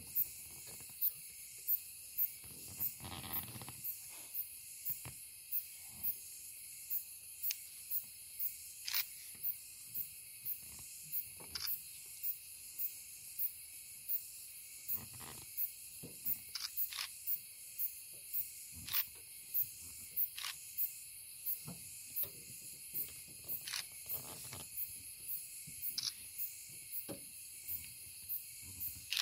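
Night insects in the forest: a steady high-pitched chorus with a sharp chirp repeating about every two thirds of a second, and a few scattered soft rustles and knocks.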